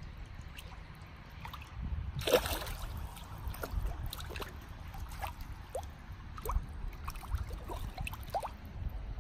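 Water splashing and gurgling irregularly as a crowded shoal of sturgeon churns at the surface, with one louder splash about two seconds in, over a low rumble.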